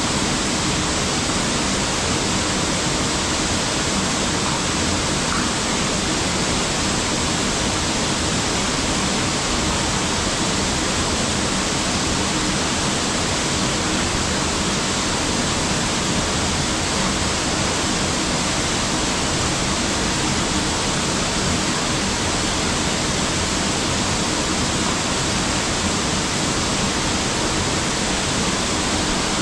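Steady, even rushing noise that holds at one level without breaks or changes.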